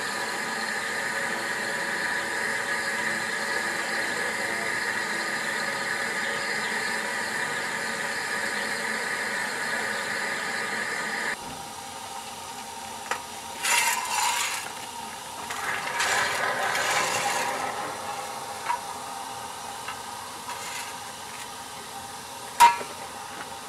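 Ffestiniog double Fairlie steam locomotive David Lloyd George standing at rest with a steady hiss of steam and a faint whine. About halfway through the sound drops, and two short hisses follow. A single sharp metallic clank comes near the end.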